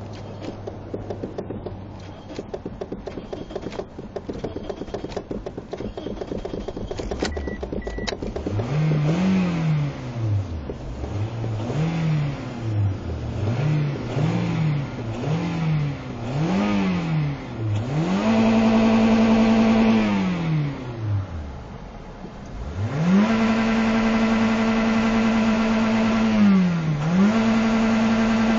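Toyota Corolla four-cylinder engine being cranked for several seconds until it catches about eight seconds in. It is then revved with quick repeated pedal pumps, each rev rising and falling, and after that held at high revs twice, with a brief drop back toward idle between the two.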